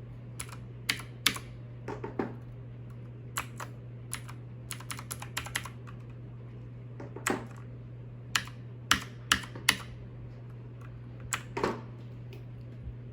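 Keys pressed on a Redragon Mitra mechanical keyboard with clicky blue Outemu switches: scattered sharp clicks, singly and in quick little clusters, with a pause of a second or two between groups. A steady low hum lies underneath.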